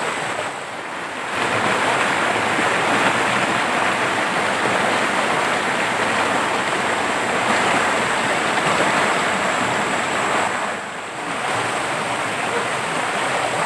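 Flood-swollen, muddy river rushing over rocks in rapids: a steady, loud wash of water, briefly quieter about a second in and again near the end.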